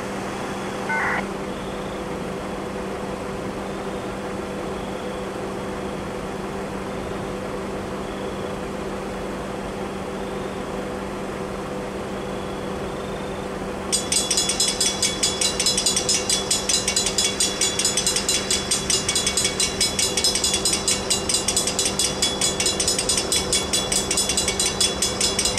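Railroad grade-crossing warning bell starting up about halfway through, ringing in rapid, evenly spaced dings as the crossing activates, over a steady low hum.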